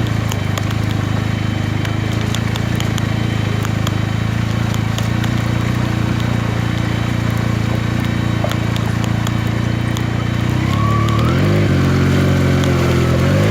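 Benelli TNT 300's parallel-twin engine running at a steady speed while riding, then revving up with rising pitch and a drop between sweeps near the end, as the rider accelerates through the gears.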